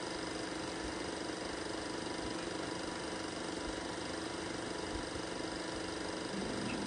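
Eumig Mark S 802 Super 8 film projector running: a steady mechanical hum and whir from its motor and film transport, with no dialogue on the film's soundtrack.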